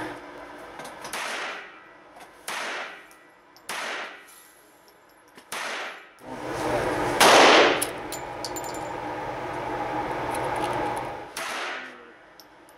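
Walther P22 .22 LR semi-automatic pistol fired shot by shot in an indoor range, six sharp reports one to four seconds apart, each ringing briefly off the walls. About seven seconds in comes one much louder, longer bang over a steady background noise.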